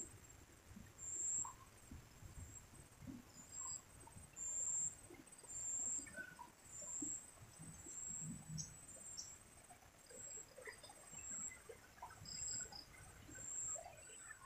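An insect chirps high-pitched in short calls about once a second. Faint scattered clicks and rustles sit underneath.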